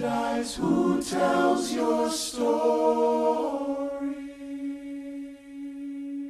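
Broadway cast ensemble singing the closing choral line of a song, then holding one final chord that slowly fades away.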